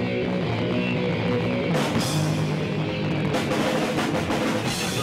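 Hardcore punk band playing live: distorted electric guitar, bass guitar and drum kit, with several cymbal crashes.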